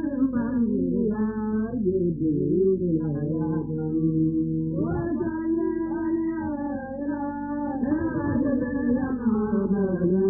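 Mawlid devotional chanting: voices singing long held notes that waver and glide slowly in pitch.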